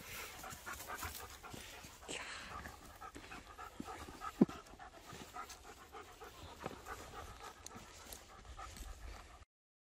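Dog panting steadily while trotting with a stick in its mouth. One sharp click about four and a half seconds in, and the sound cuts off suddenly near the end.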